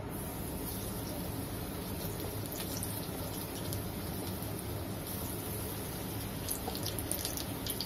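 Hot cooking oil in a wok sizzling steadily, with crackles and pops as flour-coated eggplant sticks are lowered in to deep-fry. The crackling grows busier about five seconds in.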